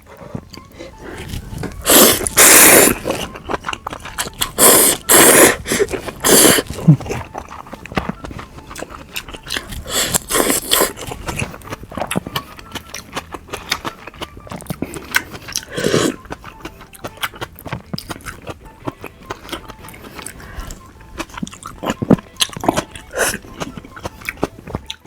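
Close-miked eating of raw fish dishes: steady chewing and mouth clicks, with several louder noisy bursts about a second long, the loudest about two seconds in.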